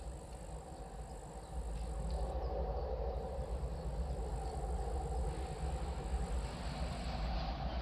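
Two GE C36-7i diesel locomotives working in multiple approach from a distance, their engine rumble growing louder about two seconds in as the train draws nearer. A thin, steady high tone runs above the rumble, breaking off briefly twice.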